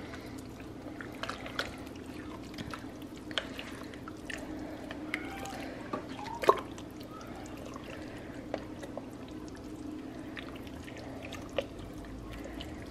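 Spoon stirring a thin, liquidy chili in a pot: soft wet sloshes and drips with scattered light clicks, over a steady low hum.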